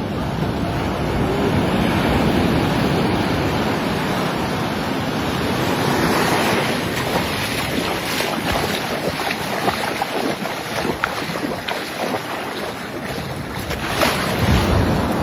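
Sea water washing and sloshing with wind buffeting the microphone, broken in the second half by scattered short splashes and knocks, the loudest near the end.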